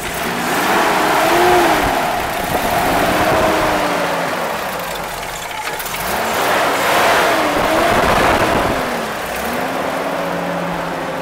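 A 1974 Toyota FJ40 Land Cruiser's inline-six petrol engine being revved in several throttle blips, its pitch rising and falling with each one.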